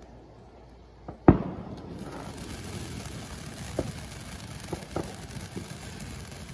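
A sharp bang about a second in, then a ground fountain firework hissing steadily as it sprays sparks, with a few small pops and crackles.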